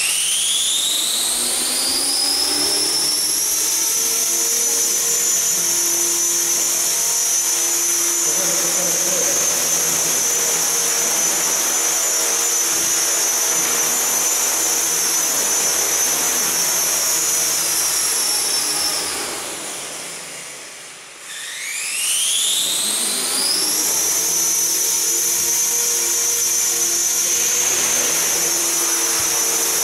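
Align T-Rex 450 SE V2 electric RC helicopter, its brushless motor and main rotor spooling up to a steady high whine, then holding steady while it hovers. About two-thirds of the way through the whine winds down almost to nothing, then spools straight back up and holds again.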